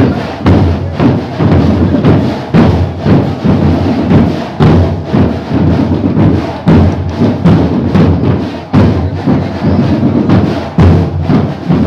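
Marching band playing a parade march, driven by loud, regular drum beats with heavy bass-drum thumps.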